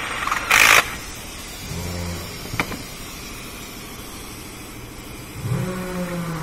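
A cordless ratchet zips briefly about half a second in, followed by a sharp metal click of tools a couple of seconds later. A low droning hum rises and swells near the end.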